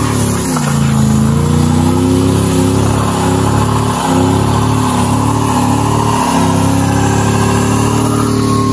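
Ford AU Falcon XR8's 5.0-litre V8 held at high revs in a burnout, with tyre noise. The revs dip briefly and climb back three times: about half a second in, about four seconds in and about six seconds in.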